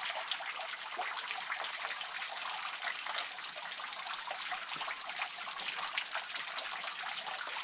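Water dripping and trickling from a natural rock spring: a steady patter of many small drops with a continuous trickle beneath.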